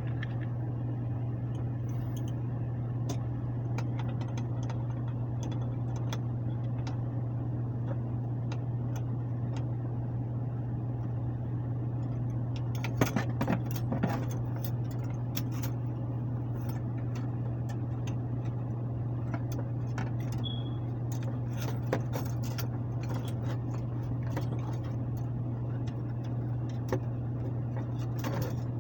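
A steady low machine hum with scattered metal clicks and clinks from handling tools and parts, bunched about halfway through and again near the end.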